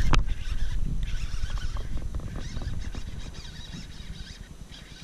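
A sharp swish and splash as the rod is swept back to set the hook on a fish, the loudest moment. Then a few seconds of irregular splashing, rustling and small clicks as the hooked fish is fought from the kayak.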